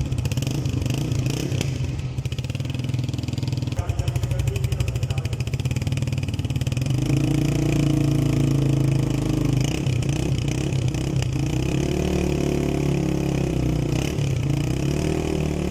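Honda CB125F's single-cylinder four-stroke engine running at a steady idle, then revved up and let back down about three times in the second half.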